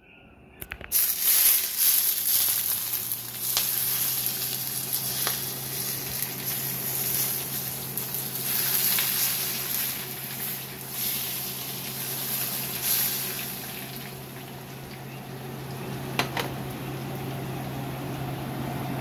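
Hot oil poured from a small saucepan sizzling as it hits steamed snapper topped with chopped green onions, the Chinese steamed-fish finishing step. The sizzle starts about a second in with a few sharp pops and eases off in the second half, over a steady low hum.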